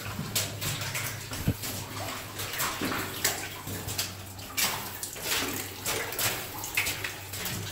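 Footsteps splashing through shallow water on the floor of a narrow rock mine tunnel, an irregular step about every half second to second, over a steady low hum.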